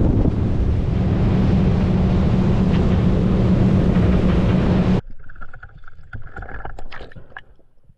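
Boat motor running at speed, a steady low hum under heavy wind and water noise on the microphone. About five seconds in it cuts off abruptly to quiet underwater sound with scattered clicks and crackles.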